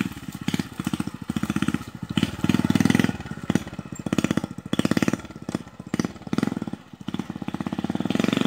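Honda Titan motorcycle's single-cylinder four-stroke engine running with an even, rapid beat, revving up and easing off several times.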